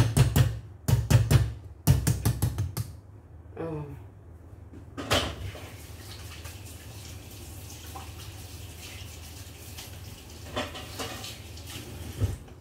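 Wire whisk beating thick brownie batter in a large steel pot, quick strokes about five a second for the first few seconds. Then, from about five seconds in, a kitchen tap running into the sink.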